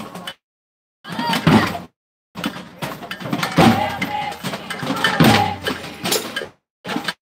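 Voices and bustle of a crowd marching in the street, heard in choppy bursts that cut off suddenly into dead silence, the longest burst lasting about four seconds in the middle.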